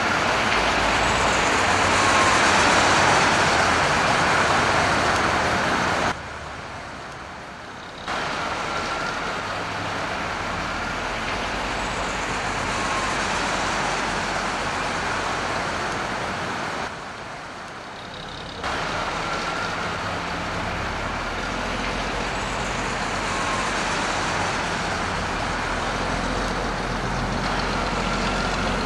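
Bus running with a steady noisy drone and a low hum. It drops abruptly to a quieter level twice, for about two seconds each time, about six and seventeen seconds in.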